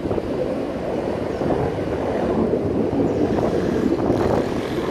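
Military fighter jets flying overhead, their jet engine noise a steady, continuous rumble.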